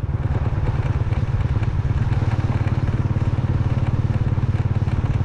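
Motorcycle engine running steadily while riding along a road, a constant low rumble with a fast even pulse.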